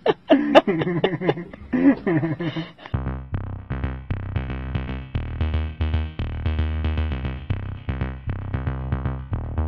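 A person laughing, then electronic music with a steady drum-machine beat and a low bass line that starts suddenly about three seconds in.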